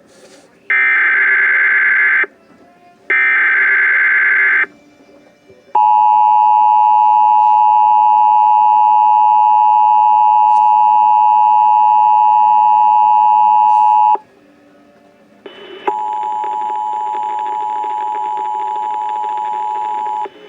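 Emergency Alert System data header: three loud, buzzy digital bursts of about a second and a half each. They are followed by the EAS attention signal, a steady two-tone sound held for about eight seconds that cuts off sharply. After a short pause a second, hissier attention tone starts and runs on.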